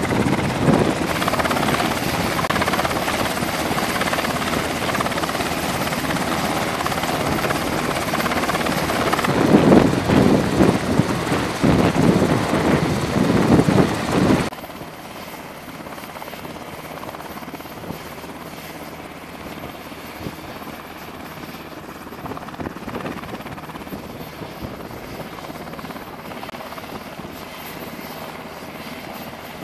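Steady machinery roar inside an aircraft carrier's hangar bay, loud and surging unevenly for the first half, then dropping suddenly about halfway to a quieter, steady hum.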